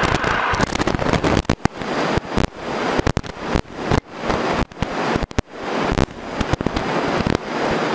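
Single-engine propeller plane's engine at full power on the takeoff roll, heard from inside the cockpit as a loud, harsh crackling noise full of brief dropouts.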